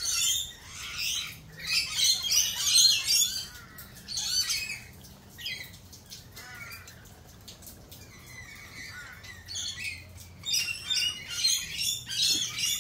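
Several birds squawking and chattering. The calling is loud and dense for the first few seconds, thins to scattered calls in the middle, and picks up again near the end.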